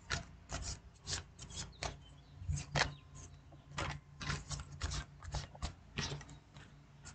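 A deck of tarot cards being shuffled by hand: an irregular run of short, sharp card clicks and slaps, about two a second, with a faint steady low hum underneath.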